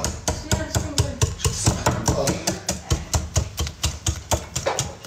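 A utensil beating cake batter by hand in a bowl, knocking against the bowl about four or five times a second in a quick, even rhythm.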